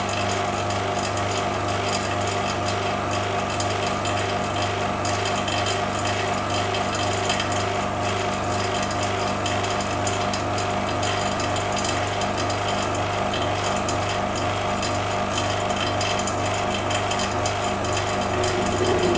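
Electric vacuum pump running with a steady hum, pulling suction on a Büchner funnel and filter flask during vacuum filtration of a hydroxide slurry.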